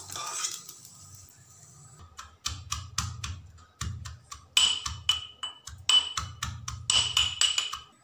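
Eggs frying in oil in a wok, the sizzle fading in the first second, then a steel pestle pounding in a steel mortar: a run of quick, sharp strikes with a dull thud and a metallic ring.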